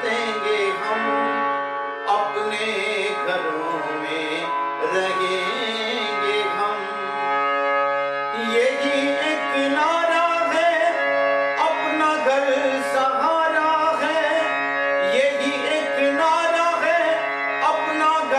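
Harmonium playing a melody over its steady reed drone, with a man singing a Hindi song in a high, strained voice, the vocal line stronger in the second half.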